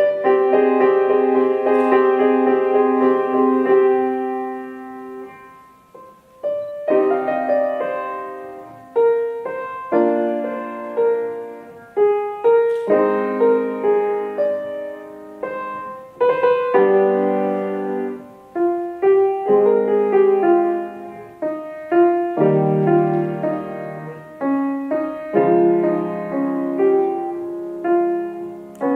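Solo piano playing a student competition piece. A held chord dies away about five seconds in, then short phrases of struck chords follow, each fading before the next.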